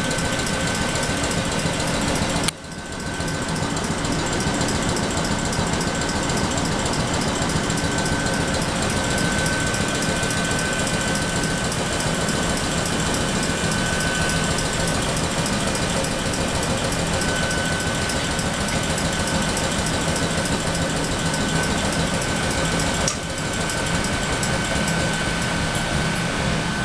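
AK-3 reciprocating air compressor on an Ohmi Railway 700 series electric railcar (rebuilt Seibu 401 series) running steadily, with a steady high whine over it. The level dips briefly about two and a half seconds in.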